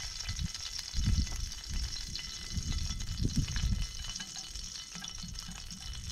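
Pieces of yellow bullhead catfish frying in hot oil: a steady sizzle, with a few low, dull bumps about a second in and again past three seconds.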